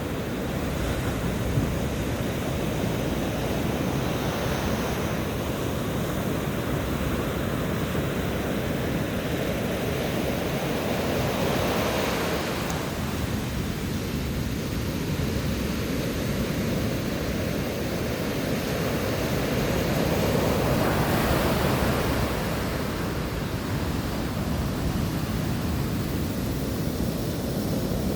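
Rough sea: waves breaking and washing in a steady roar, with a couple of bigger breakers swelling up about twelve and twenty-one seconds in. Wind buffets the microphone.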